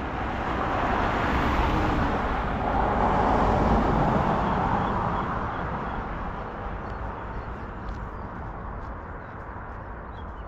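A road vehicle passing by: a rushing noise that swells over a few seconds and then slowly fades away.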